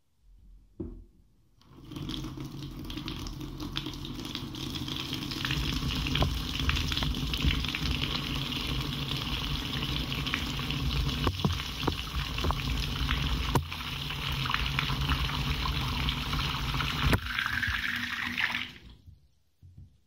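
Water running and splashing into a basin over a chrome plughole strewn with shredded paper, starting about two seconds in and stopping suddenly near the end. A tone rises in pitch shortly before it stops.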